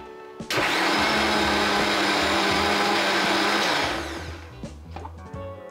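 An Inalsa mixer grinder blending chutney with mayonnaise in its small steel jar. It starts suddenly about half a second in, runs steadily for about three seconds, then is switched off and winds down with a falling whine.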